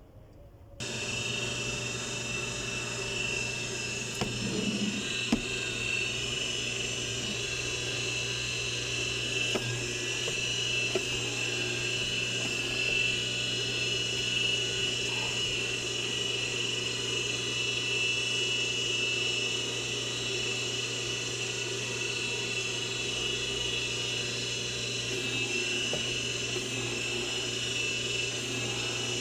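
Industrial sewing machine clutch motor, its clutch cork freshly replaced, switched on about a second in and running steadily with a high whine over a low hum. A few faint knocks come through in the first dozen seconds.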